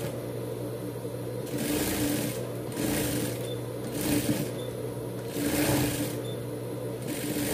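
Sewing machine running as it topstitches the edge of a fabric bandana, a steady hum with several brief louder surges.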